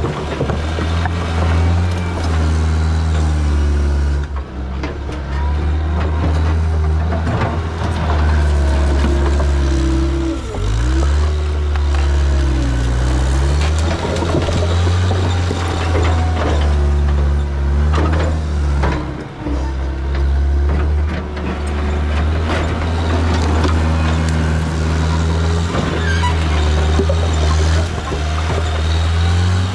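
2014 John Deere 323D track skid steer's diesel engine running hard while the machine works, its note dipping under load about ten seconds in and picking back up, with scattered clanks and knocks from the machine.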